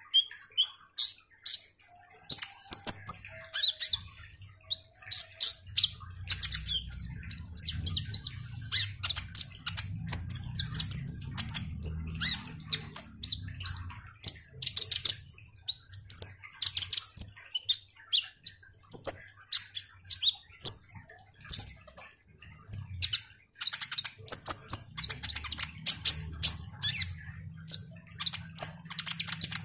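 Caged male kolibri ninja sunbird singing nonstop: a busy, rambling stream of high-pitched chirps, fast trills and short whistles, with quick rising and falling slurs.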